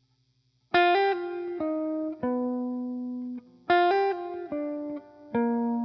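Background music: a plucked guitar phrase of single notes, each ringing and fading, played twice.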